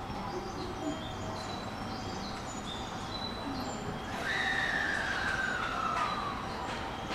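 Electric train's motor whine falling steadily in pitch for about two and a half seconds, starting about four seconds in, as a train slows.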